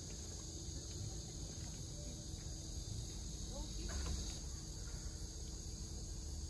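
Steady high-pitched chorus of summer insects trilling, with a low rumble underneath.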